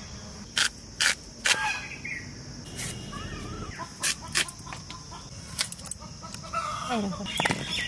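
A steel blade cutting raw mankochu (giant taro): several sharp, crisp cracks at uneven spacing. This crackling is a sign of good taro that will not make the throat itch. A hen clucks a few times in between.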